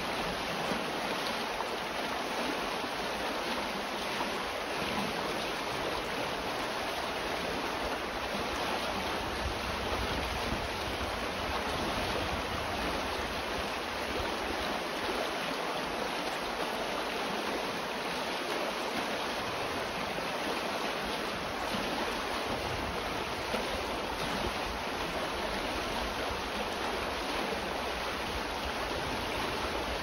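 River water babbling and rushing in a steady, even flow.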